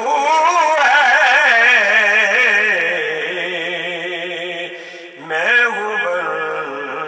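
A man singing a devotional hamd in long, wavering drawn-out notes without clear words. The voice fades, and a new phrase starts about five seconds in.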